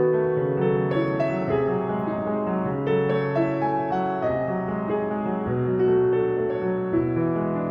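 Instrumental background music of slow, held keyboard notes and chords.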